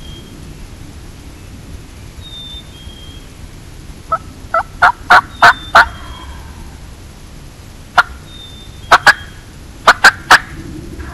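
Turkey yelping, loud and close: a run of about six yelps evenly spaced, then after a pause a single note, a quick pair and a short run of three or four more.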